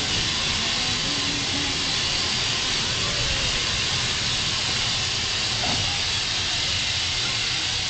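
Steam locomotive standing at the platform, hissing steam steadily over a low rumble.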